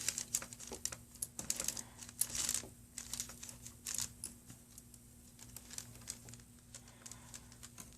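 Light, irregular clicks and scrapes of a small screwdriver, screws and a thin metal bracket being worked on a laptop LCD panel, busiest in the first half and sparser later, over a faint steady hum.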